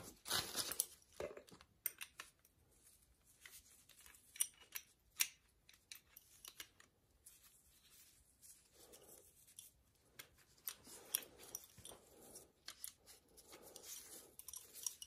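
Faint, scattered small metal clicks and ticks with light rustling as gloved hands handle an oil burner's nozzle and electrode assembly and fit a new oil nozzle onto it with an adjustable wrench.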